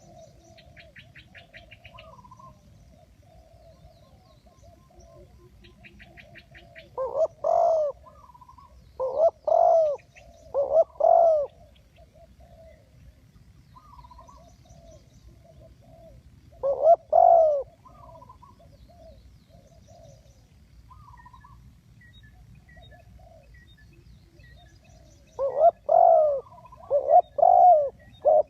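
Spotted doves cooing. Loud short phrases of low coos come four times, then a quicker run of phrases near the end, with softer cooing and faint high chirps of small birds in between.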